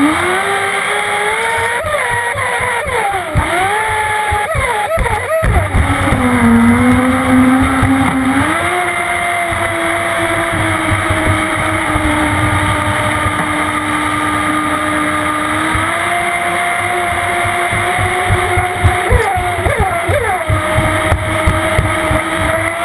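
Small model jet boat's motor whining under throttle, its pitch climbing, dipping and climbing again, then holding steady for several seconds before wavering near the end. Underneath are rushing water and rapid slaps of the hull and spray.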